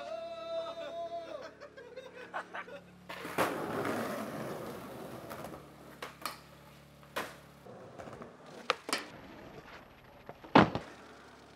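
Skateboard wheels rolling on concrete, with several sharp clacks of the board popping and hitting, then one loud board slap about ten and a half seconds in as the skater lands.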